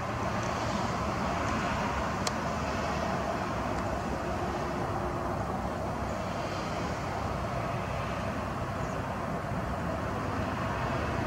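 Steady outdoor rushing background noise with no clear pitch, with one faint click about two seconds in.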